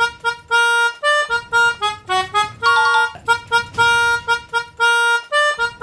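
Melodica playing a quick tune of short, stepping notes with a few longer held ones. The phrase is played twice.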